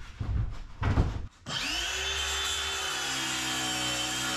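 A few thumps, then about a second and a half in a cordless Makita circular saw starts with a rising whine and runs steadily, ripping a thin sliver off the edge of a mahogany board.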